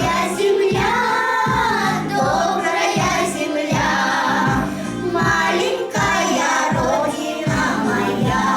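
Children's vocal ensemble singing a song over a recorded backing track with a steady beat.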